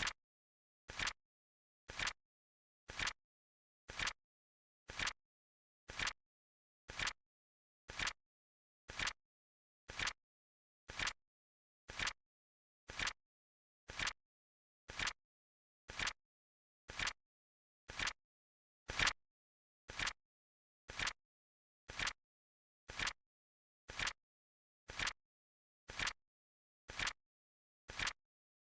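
Flip clock timer's flip sound effect: a short, sharp click once every second in dead silence, with one click a little louder about two-thirds of the way through.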